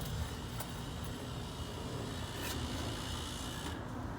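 Steady low background rumble and hiss, with a couple of faint, short clicks.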